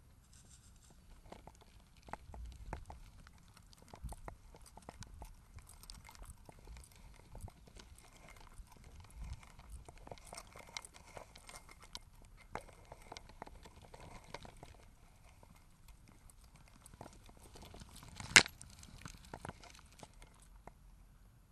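Footsteps on a lane, with scattered clicks and rustles and one sharp, loud click near the end.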